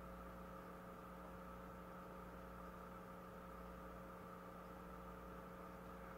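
Faint, steady electrical hum with hiss, a few constant tones under an even noise floor, with no other sound.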